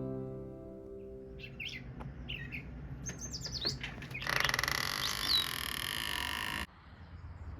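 Bird chirping, a run of short, high, falling calls. About halfway through, a loud steady hiss comes in for roughly two seconds, with one more chirp over it, and then cuts off suddenly.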